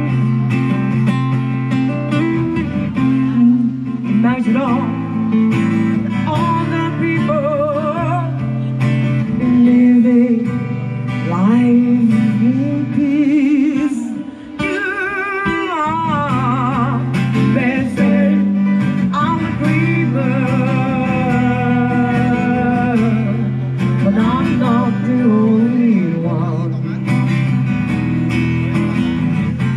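Live acoustic music: acoustic guitar played with a melody sung over it, some of the long notes wavering.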